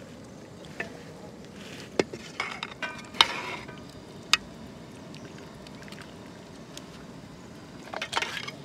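Metal ladle clinking and knocking against an aluminium cooking pot while pork is lifted from the boiling water, with a cluster of clinks about 3 seconds in and another brief cluster near the end, over a steady low hiss.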